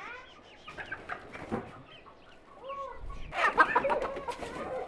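A flock of domestic chickens clucking, with a louder burst of squawking about three and a half seconds in.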